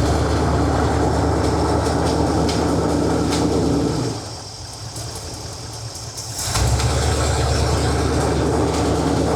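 Starter cranking the 454 big-block V8 of a 1970 Chevy C20 over in two bursts, about four seconds and then about three seconds, with a short pause between. The engine is being bumped over to check the freshly adjusted hydraulic lifters.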